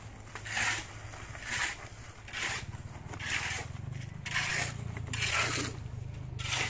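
Wet concrete being scraped and worked into a wooden plant-pot form: about seven scraping strokes, roughly one a second, over a low steady hum.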